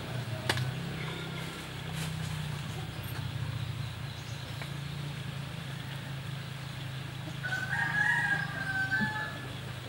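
A rooster crows in the background near the end, one call of about a second and a half, over a steady low hum. A single light tap about half a second in.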